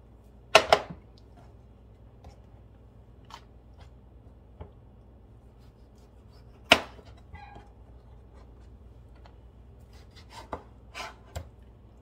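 Kitchen knife slicing through tomatoes and knocking on a plastic cutting board: two sharp knocks about half a second in, another loud one about halfway through, then a quick run of several cuts near the end, with faint ticks between.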